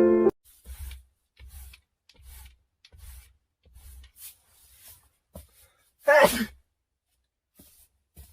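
A young man sneezing once, sharply, about six seconds in. Before it comes a run of soft scuffing or rustling noises, roughly one a second.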